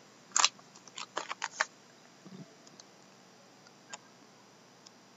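Handling noise: a quick run of light clicks and taps, then a couple of faint ticks.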